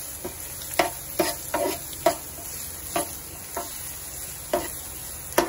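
Diced potatoes and onions frying in oil in a granite-coated non-stick pan, stirred with a steel spoon: a steady sizzle with irregular scraping knocks of the spoon against the pan, about nine strokes.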